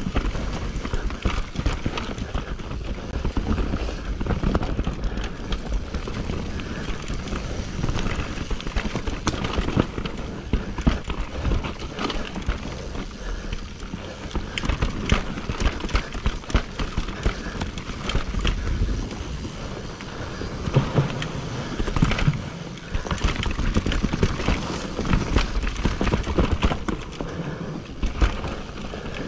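Mountain bike riding down a dirt singletrack: tyres running over dirt and roots while the bike rattles and clatters in constant irregular knocks.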